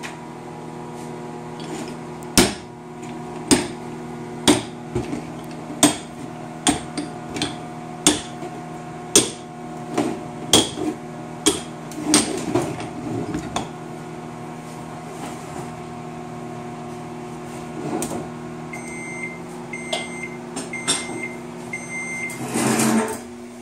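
A microwave oven hums steadily while heating plastisol, and its timer runs out with four short beeps near the end. About a dozen sharp clicks and knocks from a metal lure mold being handled come over the hum in the first half, and a short clatter follows just before the end.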